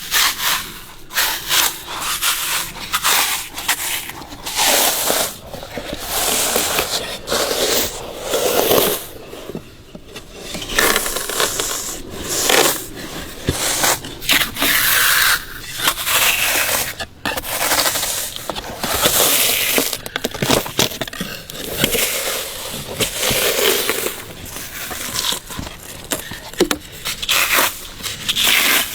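Bark being peeled and torn from a Phellodendron (huang bai, Amur cork tree) trunk or branch: an uneven run of tearing and scraping strokes with crackles, each up to about a second long, with short breaks between them.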